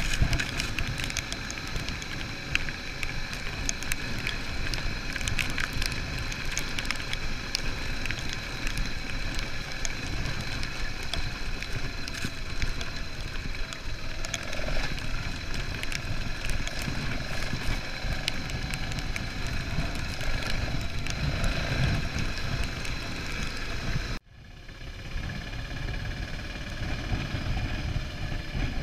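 Single-cylinder 650 dual-sport motorcycle engine running under way on a sandy track, mixed with wind buffeting on the bike-mounted microphone and frequent small ticks from sand and grit under the tyres. The sound drops out abruptly near the end and picks up again.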